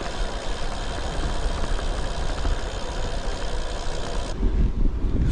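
Wind buffeting the bike-mounted camera's microphone, with tyre noise from an e-road bike rolling along a tarmac path. A low steady rumble runs throughout and changes character abruptly about four seconds in.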